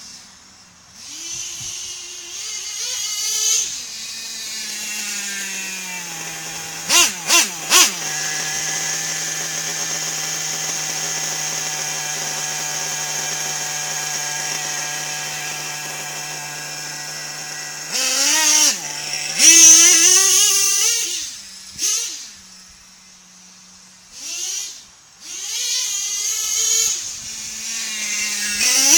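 Small nitro glow engine of a radio-controlled buggy: three quick throttle blips, then a steady idle for about ten seconds, then revving up and down repeatedly as it drives.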